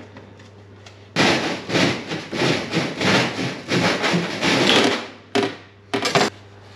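Plastic water pipe scraping and rubbing against the wall as it is pushed and worked into place, in rough repeated strokes about twice a second for several seconds, then two short scrapes near the end.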